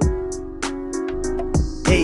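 Background music with a steady drum beat under held chords, and a short whooshing noise near the end.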